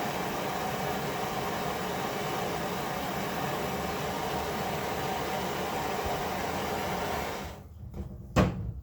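A heating tool runs with a steady rushing noise, warming the crossbow bolt's field point to loosen its glued insert. It cuts off suddenly about seven and a half seconds in, followed by a single sharp click.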